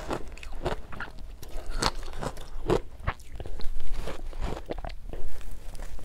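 Mouthfuls of powdery ice dusted with matcha powder being bitten and chewed, a string of irregular sharp crunches. The loudest come a little past halfway and again near the end.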